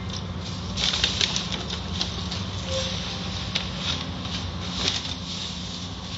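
Water spraying and splattering on a car's windshield, heard from inside the car in an automatic car wash, with many fast ticks of droplets on the glass that grow louder about a second in. A steady low hum runs underneath.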